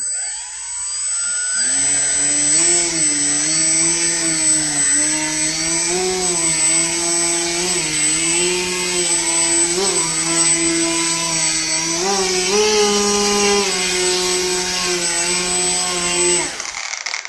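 Model plane's small electric motor and propeller running in a static thrust test, at about half throttle, enough for the model to hold its own weight. It spools up quickly at the start, its pitch wanders up and down as the revs jump, and a thin steady high whine runs above it. It shuts off just before the end.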